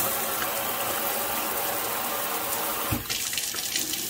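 Water running from a newly installed kitchen faucet into a stainless steel sink as it is test-run, first through the sprayer head as a spray, then switched to a steady stream about three seconds in.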